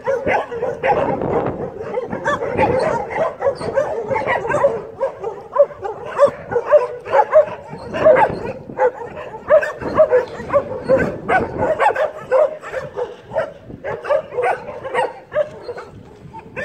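Many dogs barking at once, short barks overlapping densely with no break.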